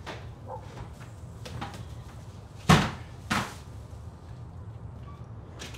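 A front door opening and someone stepping in: a few faint clicks, then two heavy thuds about two-thirds of a second apart near the middle, the first the louder.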